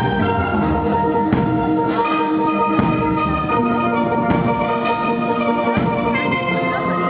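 Steel band playing a pop melody live: steel pans ringing out held and repeated notes over a steady drum beat.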